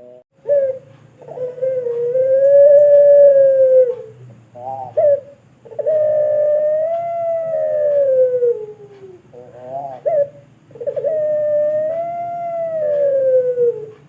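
Puter pelung dove (ringneck dove) cooing: three long, drawn-out coos of about three seconds each, each rising slightly and then falling away at the end, with short stuttering notes before the second and third.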